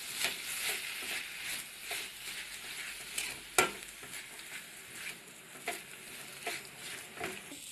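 A metal spoon stirring and scraping in a stainless steel pan, mixing mayonnaise into sautéed vegetables, with irregular clinks and one sharp clink about three and a half seconds in. A steady faint sizzle runs underneath from the pan on the heat.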